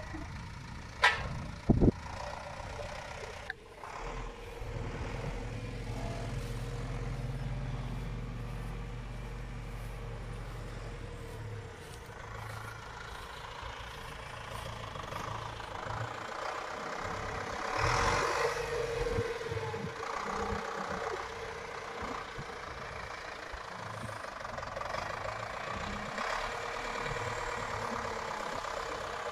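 Farm tractor engine running, with two sharp knocks about a second in and a louder stretch about two-thirds of the way through.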